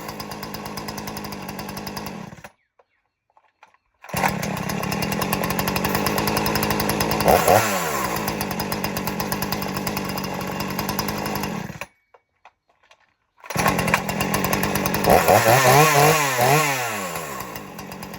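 Two-stroke gas chainsaw running steadily and revved up and back down, once about seven seconds in and several times near the end. The sound drops out abruptly twice, for about a second and a half each time.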